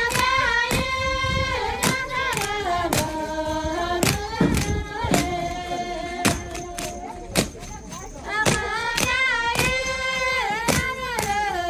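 A group of women singing a work song together in long held notes, over a steady beat of thuds about twice a second struck in time with the song.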